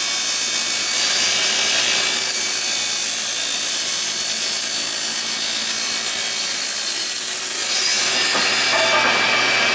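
Table saw ripping a 2x4 lengthwise at an angle of about 35 degrees, the blade cutting through the wood with a steady saw noise.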